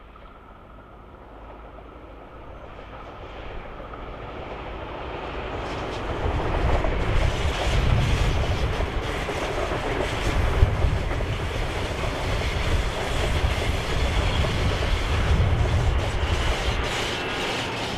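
XPT diesel-electric express train approaching and passing close by. The engine and wheel noise grow steadily louder over the first six seconds, then hold as a loud, steady rumble with clicks from the wheels over the rails.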